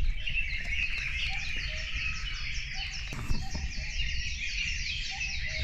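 Early-morning dawn chorus: many birds chirping and calling at once, a dense run of quick repeated chirps, over a low rumble.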